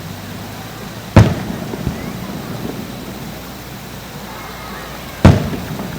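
Two loud firework bursts about four seconds apart, each a sharp bang followed by a fading rumble and a few smaller pops.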